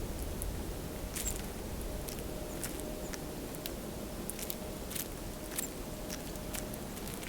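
Eurasian jay feeding: irregular sharp taps and clicks, roughly one or two a second, over a low steady rumble.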